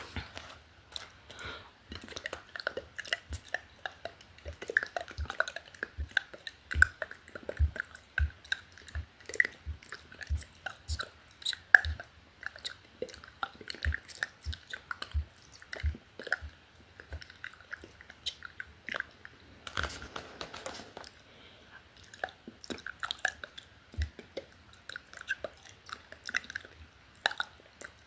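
Close-miked ASMR mouth sounds: a rapid, irregular stream of wet clicks and lip smacks, with a short breathy stretch a little past the middle.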